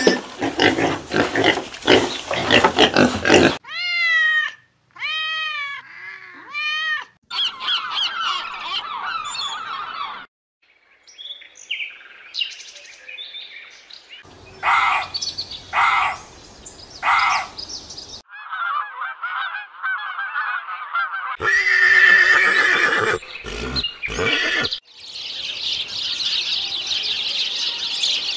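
A run of different animal calls, cut together one after another with abrupt changes. It includes a series of rising-and-falling pitched calls about four seconds in, three evenly spaced calls near the middle, and a hissing stretch near the end.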